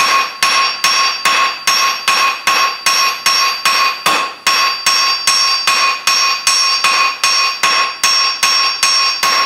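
Rounding hammer striking red-hot 3/8-inch mild steel square stock held on the diamond on a JHM Shaper anvil, driving straight down to spread a leaf. A steady run of blows, about two and a half to three a second, each followed by a clear bell-like ring from the anvil.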